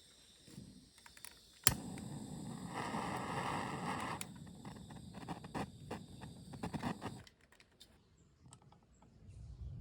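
A sharp click, then a run of irregular clicks and rattling handling noises over a low rustle, cutting off abruptly about seven seconds in; quieter scattered ticks follow.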